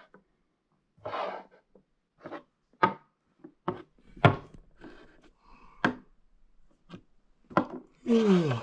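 Toy figures being handled, with scattered sharp knocks and short scrapes on a hard surface. Near the end a voice slides down in pitch.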